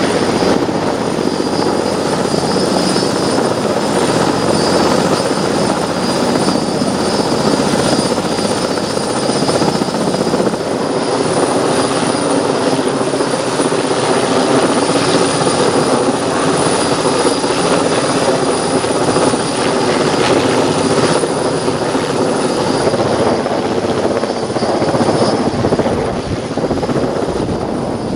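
Helicopter running close by, a loud steady rotor noise with a high whine over it. Its engine is working on a heavy lift, carrying a standby generator up to a rooftop.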